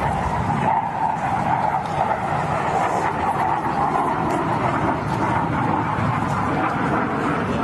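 Blue Angels F/A-18 Hornet jet roar as the aircraft passes overhead: a loud, steady rushing noise that slowly falls in pitch.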